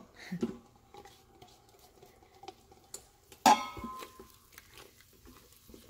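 Silicone spatula stirring onion paste in a stainless steel Instant Pot inner pot: soft scraping and light ticks, with one sharp metallic clink and a brief ring about three and a half seconds in.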